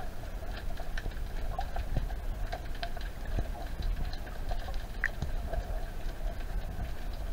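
Underwater ambience picked up by a camera beneath the sea surface: many scattered clicks and crackles over a low rumble, with a faint steady hum.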